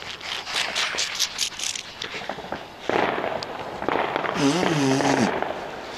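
Fireworks going off: a quick run of sharp crackles for the first two seconds, then a sudden louder, steady rush of noise from about three seconds in. A person's voice is heard briefly near the end.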